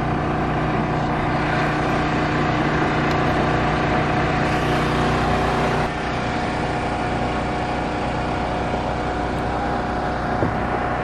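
An engine idling steadily, a droning hum with a fixed pitch; it drops slightly in level about six seconds in.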